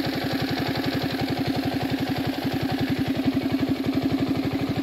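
Mini bike's small engine idling steadily, a fast, even putter that neither revs up nor drops.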